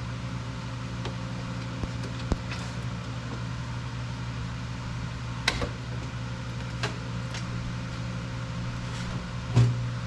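A steady low mechanical hum, like a motor or engine running, with a few sharp knocks; the loudest knock comes near the end.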